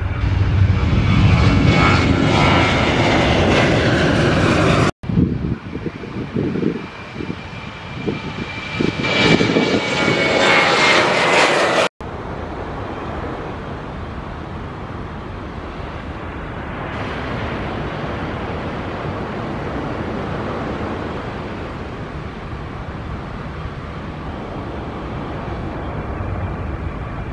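Airliner engines at takeoff power, in three pieces joined by sudden cuts. The first two, about five and seven seconds long, are loud, with a high whine that slowly falls in pitch. The last, longer piece is a quieter, steady rumble.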